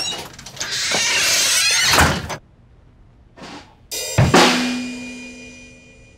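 Drum kit played in short bursts: a loud crashing stretch of cymbals and drums that cuts off suddenly about two seconds in, then a single bass-drum and cymbal hit near four seconds. The cymbal and a low held note ring out and fade over about two seconds.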